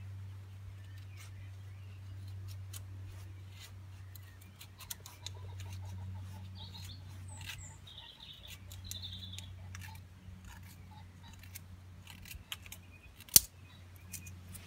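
A knife carving thin shavings from a dry stick to make kindling for fire lighting: a run of small scraping clicks, with one sharp, loud crack near the end.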